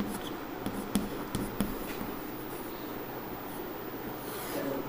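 Chalk writing on a chalkboard: a few sharp taps in the first couple of seconds as strokes are started, then a longer scrape a little after four seconds in.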